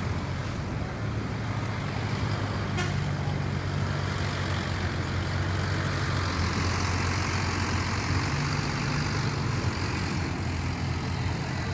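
A large road vehicle's engine running with a low, steady rumble, while road and tyre noise swells about six seconds in as traffic goes by.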